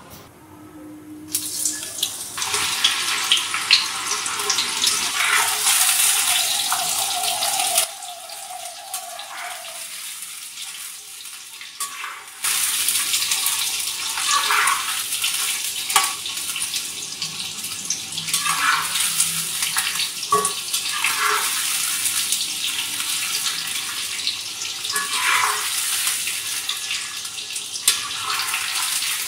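Soya chunks deep-frying in hot oil in a wok: a loud, steady sizzle, with a slotted spatula stirring and scraping now and then. The sizzle drops away for a few seconds about eight seconds in, then comes back loud.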